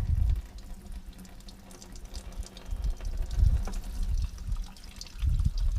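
Gasoline draining out of a John Deere Model A tractor's fuel system, pouring and trickling down a folded piece of cardboard into a container, with a few low thumps along the way.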